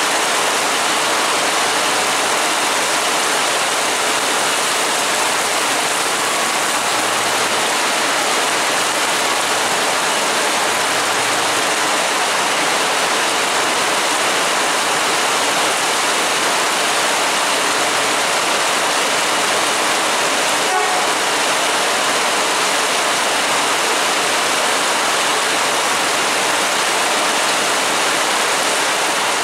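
Heavy tropical rain pouring down in a steady, loud hiss.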